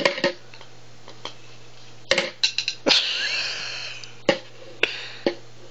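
Hard plastic stacking-toy rings clacking and knocking against the toy's post and base as they are handled, in a string of separate sharp clicks, several close together about two seconds in. About three seconds in comes a brief higher, noisy sound lasting about a second.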